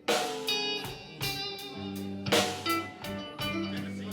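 Electric guitar playing a slow, bluesy intro: picked notes and chords that start sharply and ring out, with steady low notes entering about two seconds in.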